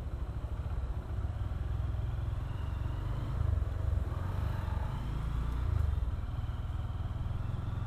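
Motorcycle engine running steadily at low revs as the bike rolls slowly along, heard from the rider's own bike as a continuous low rumble.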